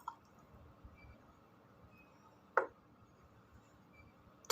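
A single sharp tap with a brief ring about two and a half seconds in, over a faint room hush.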